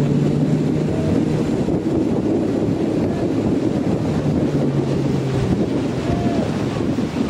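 Wind buffeting the microphone on a moving motor launch, over water rushing past the hull, with the launch's engine hum fading about a second in and coming back in the middle.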